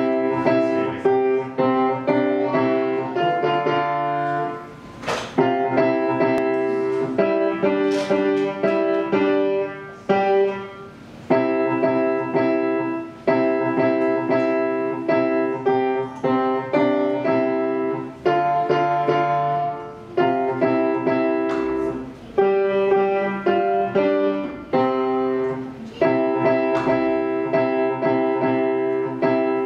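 Grand piano being played: a piece of struck chords and melody in short phrases, with brief breaks about five and ten seconds in.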